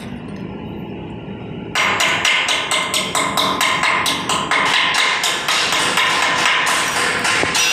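A hammer striking metal rapidly and repeatedly, about five or six blows a second, starting about two seconds in after a low steady hum.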